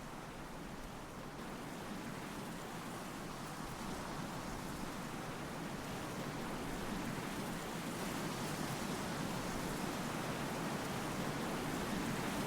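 A steady rushing noise with no distinct events, slowly growing louder.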